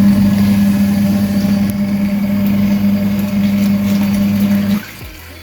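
Small 7 kg Bennett washing machine's wash motor humming steadily during a wash cycle, stopping suddenly near the end as the drum pauses between turns.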